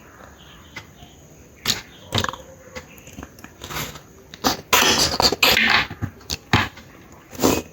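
Close-up eating sounds: wet chewing and mouth clicks. About halfway through comes a louder stretch of crunching.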